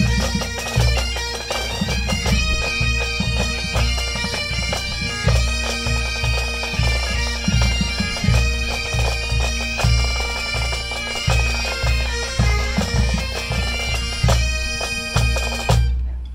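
Pipe band playing: Highland bagpipes with their steady drones under the chanter melody, and snare drums and a bass drum beating time. The tune stops abruptly near the end.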